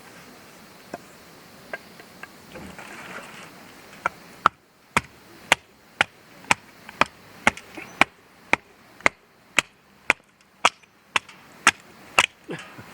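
A steady series of sharp blows, about two a second, starting about four seconds in, after a few lighter knocks.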